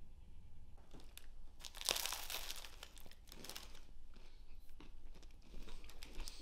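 A white paper napkin crinkling around a crusty baguette sandwich as it is bitten into and chewed, with crunching of the crisp bread. The crackling starts about a second in and is loudest around two seconds in, then goes on in smaller crackles.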